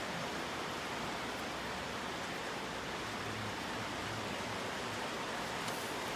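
Steady background hiss with no distinct knocks, clicks or tool sounds.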